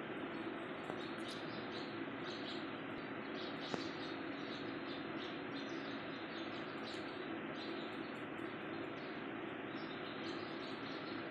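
Steady background hiss, with short, high chirps scattered irregularly through it.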